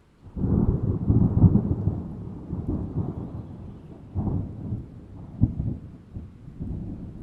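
A thunderstorm sound effect: a thunderclap breaks in suddenly just after the start and rolls on as a deep rumble, fading, with fresh swells of rumbling about four and five and a half seconds in.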